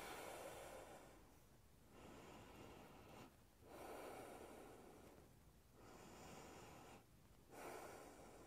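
Faint, slow breathing from a woman holding a plank pose: soft breaths, each about a second long, coming about every one and a half to two seconds.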